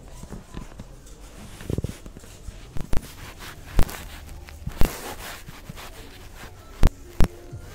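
Irregular sharp knocks and clicks, about seven in all, with a low thud near two seconds in: handling noise from browsing clothes on metal shop racks, hangers knocking and the handheld recorder being bumped.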